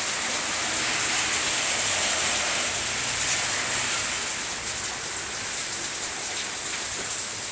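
Heavy rain pouring down in a storm, a steady, even hiss of a downpour.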